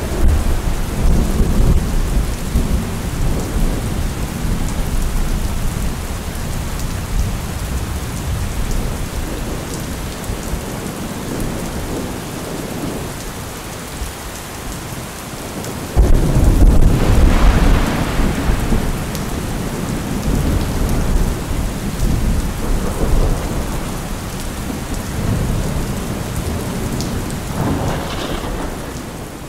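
Steady rain with rumbling thunder. A loud thunderclap breaks in suddenly about halfway through and rumbles away over several seconds.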